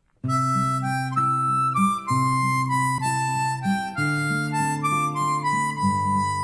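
Instrumental background music that starts a moment in after a brief silence: a melody of held notes over sustained chords.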